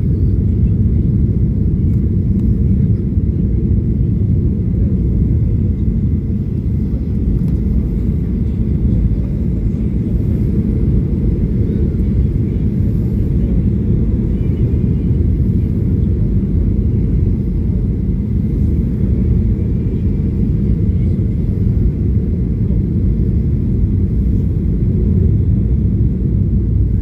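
Steady low rumble of an airliner just after landing, holding an even level throughout.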